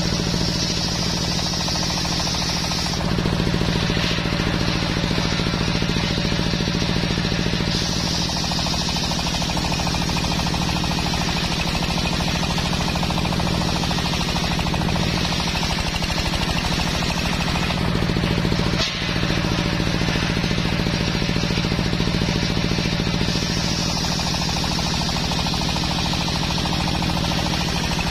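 Large belt-driven table circular saw ripping a teak log: a bright, high cutting hiss over the steady pulsing drone of the drive engine. The cutting sound swells and fades several times as the log is pushed through and fed back for the next pass.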